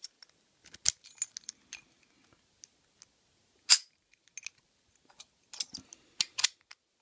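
American Lock Series 700 padlock being worked with its key, giving a string of small metallic clicks and clinks as the key goes in and turns the lock. One sharp click a little past halfway is the loudest, and a quick cluster of clicks follows near the end.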